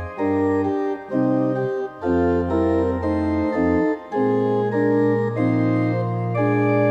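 Organ music: slow, held chords over a low bass, changing about once a second.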